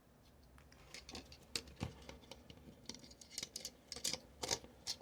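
Irregular light clicks and taps of small tablet parts being handled and fitted during reassembly, coming more often in the second half.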